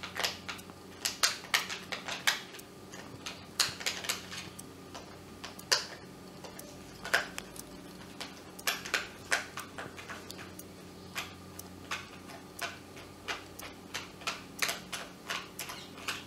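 Irregular light clicks and ticks, often several a second, of a screwdriver turning screws out of a hand blender's plastic back cover while the plastic housing is handled.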